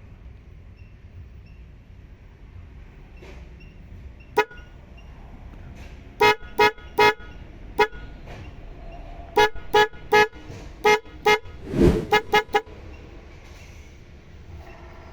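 KAIER snail-shaped car horn on a Maruti Suzuki Alto LXi, sounded in about a dozen short toots: a few spaced ones from about six seconds in, then a quicker run of them just before the end.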